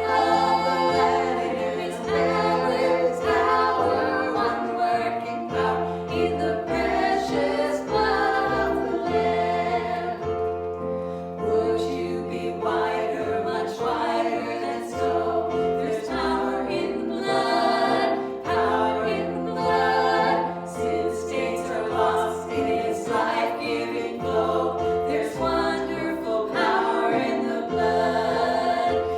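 A choir singing a gospel worship song with instrumental accompaniment, held chords over a bass line that changes note every second or two.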